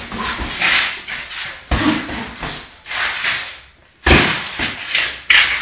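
Boxing gloves landing punches during sparring: several sharp thuds a second or two apart.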